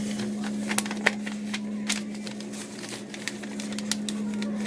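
A sheet of loose-leaf paper being folded in half and creased, crinkling in irregular sharp clicks, over a steady low hum.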